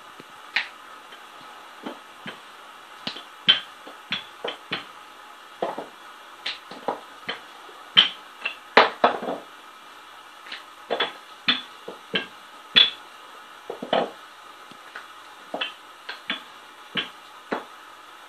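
Wooden rolling pin knocking and rolling on a wooden chopping board as dough is rolled out thin: irregular sharp clacks, roughly one or two a second and some in quick pairs, over a faint steady hum.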